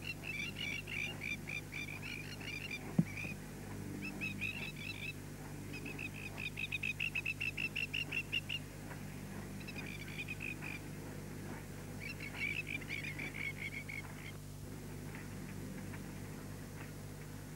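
Rapid high chirping calls of small animals in repeated bursts of several pulses a second, over a steady low hum, with one sharp click about three seconds in.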